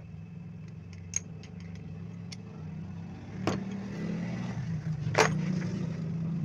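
Knocks and clicks of a cast-iron hand sewing machine being handled as its head is tilted and set back upright on its bed, the loudest knock about five seconds in. A low steady hum runs underneath and grows louder.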